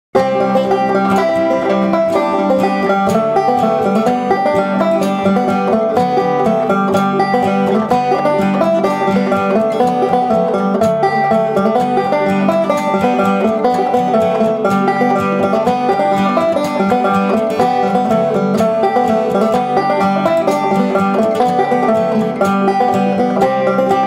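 A budget Ashthorpe banjo played solo, a continuous stream of bright picked notes with a twangy, ringing tone.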